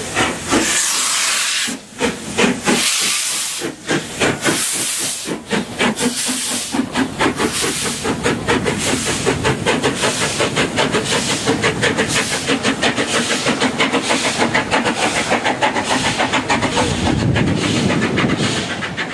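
LMS Royal Scot class 46115's three-cylinder 4-6-0 steam engine starting away, with loud steam exhaust chuffs and hiss. The beats come slow and uneven at first, then quicken to a steady rhythm of about four a second as the locomotive gathers speed.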